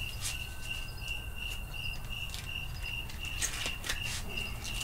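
Crickets chirping steadily, about four chirps a second, with a few short sharp clicks and scrapes of handling in among them.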